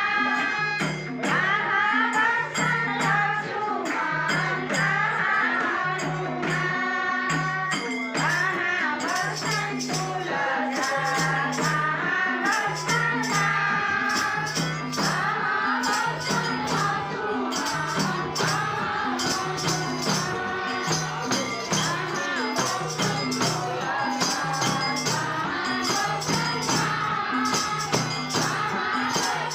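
Bhajan kirtan: a group singing a devotional hymn, with hand percussion keeping a steady beat.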